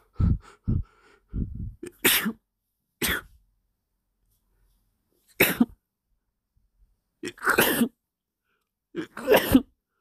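A person's sneezing fit: a few short breathy catches at first, then five sharp sneezes spaced one to two seconds apart.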